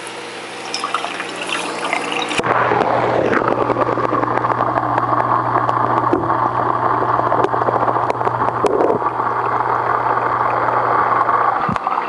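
Aquarium wet/dry filter system running: a steady pump hum under rushing, trickling water, getting suddenly louder about two seconds in. A few light clicks sit on top.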